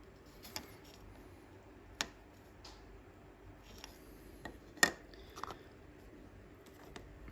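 Light clicks and taps of small objects being handled on a work desk while a miniature model is hand-painted: about half a dozen scattered clicks over a faint steady background, the sharpest about two-thirds of the way through.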